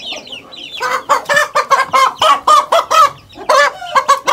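A chicken cackling: a fast run of loud, pitched clucks, about four a second, starting about a second in and running on with a brief break near the end, over faint high peeping at the start.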